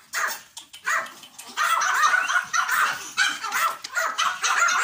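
A pack of Pomeranians yapping and barking over one another: a few separate barks at first, then from about a second and a half in a dense, steady chorus of high yaps.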